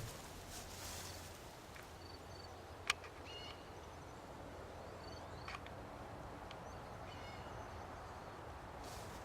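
Faint outdoor background with scattered short bird chirps over a low steady hum, and a single sharp click about three seconds in.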